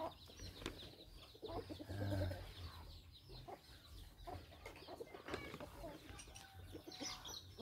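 Chickens clucking on and off, with light rustles and knocks from a root ball of soil being set into a plastic polybag.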